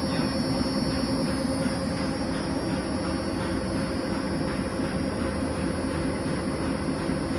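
Gear-drive bench-top planetary ball mill running steadily, its ceramic jars spinning on their own axes while revolving on the turntable: a constant mechanical hum over a dense, even rattling noise.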